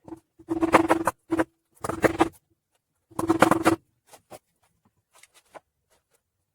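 Hammer knocking on a wooden block set against the seized pistons of a Mopar 318 V8, in four short bursts of blows with a ringing note, then a few lighter taps: the stuck engine being driven loose.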